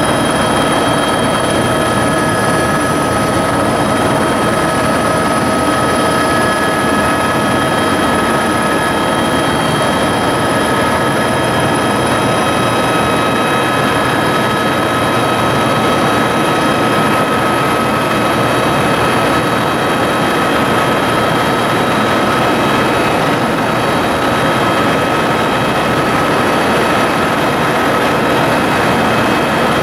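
Tour helicopter in flight, heard from inside the cabin: a loud, steady rotor and engine din with several fixed whining tones over it.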